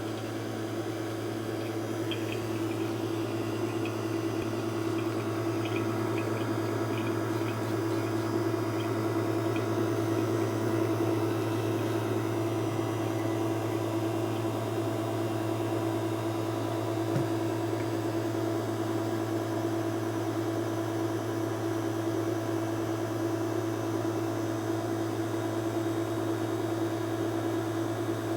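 Engine idling steadily with a constant hum and a hiss over it, the kind of hiss a vacuum leak makes.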